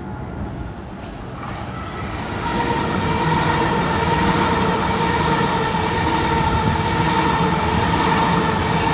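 Sydney electric suburban train running through the station. It grows louder about two to three seconds in, then holds a steady whine over the rumble of the train.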